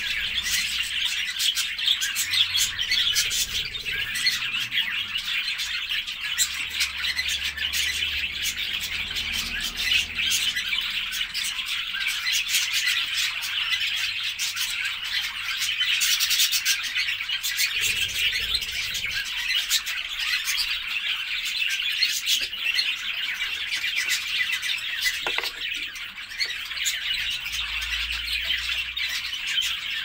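A flock of budgerigars chattering: many warbling and chirping calls overlapping in a dense, unbroken stream. It is the kind of budgie chatter played to stimulate budgies to breed.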